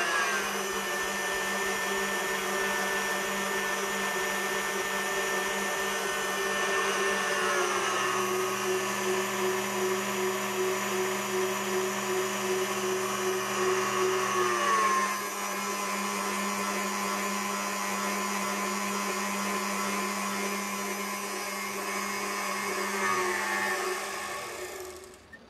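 KitchenAid Heavy Duty K5SS stand mixer motor running with its wire whip turning in an empty stainless bowl. Its steady whine steps down in pitch several times as the speed lever is lowered, then cuts off near the end when the mixer is switched off.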